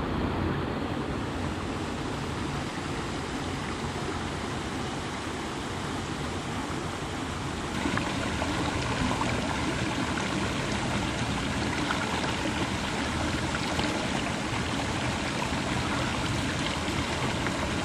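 Small forest stream rushing over rocks through little cascades, a steady water sound. About eight seconds in it becomes nearer and brighter.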